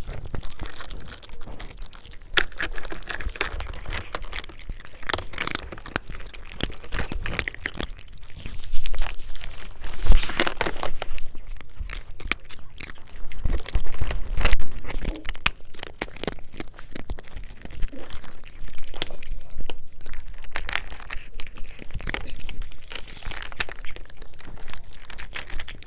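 Cats eating food: a steady run of irregular short crunches and clicks, with louder ones about ten and fourteen seconds in.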